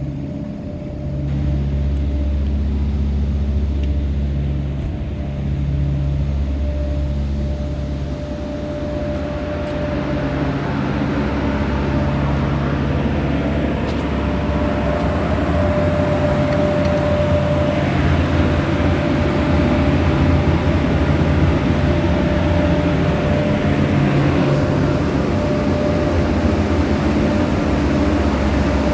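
Engine of a refrigerated truck running steadily with a constant low hum. From about ten seconds in it grows louder and noisier.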